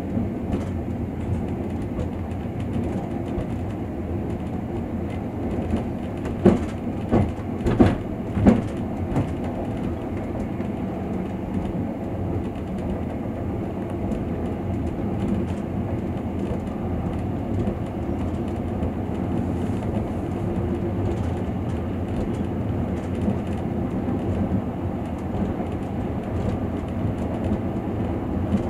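Train running along the track, heard from inside the carriage: a steady low rumble of wheels on rail, with a short run of sharp wheel clacks over rail joints about six to nine seconds in.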